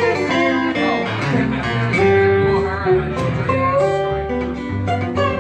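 A small live band playing an instrumental passage of a slow blues: plucked guitars carrying a melody with bending notes over a walking upright bass, with no singing.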